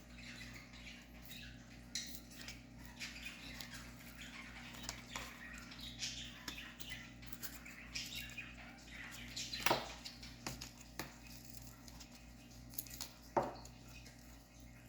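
Faint small plastic clicks and scraping as a Dodge Journey key fob's case is worked open, with two louder clicks about ten and thirteen seconds in.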